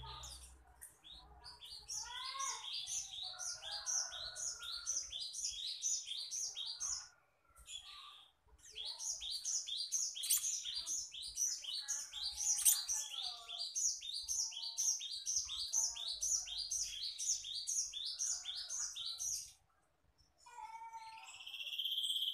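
Black-naped monarch (kehicap ranting) singing: long runs of quick, evenly repeated high notes, about three to four a second, with softer lower twittering under them. The runs break off twice, briefly.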